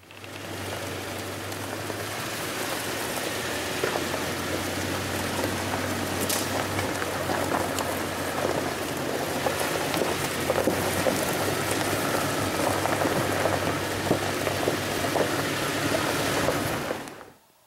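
Toyota Land Cruiser tyres rolling over a gravel dirt trail, heard close to the front wheel: a dense, steady crunch and crackle of stones with a low hum underneath. It starts suddenly and cuts off shortly before the end.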